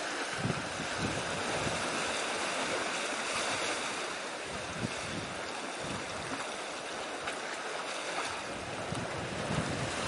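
Wind buffeting the microphone in uneven gusts over a steady wash of sea and surf.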